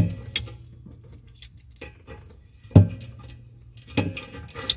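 Small metal-on-metal scraping and clicking as a tube cutter's fold-out deburring blade is worked around the cut end of a copper pipe, with a few sharper knocks at the start, about three seconds in and again a second later.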